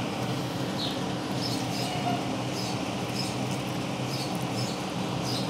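A steady low hum with short, high, slightly falling chirps, singly or in pairs, every half second or so.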